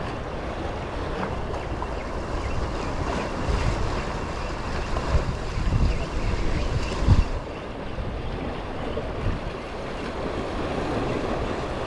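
Wind buffeting the microphone over the wash of sea waves, with stronger gusts of low rumble around the middle.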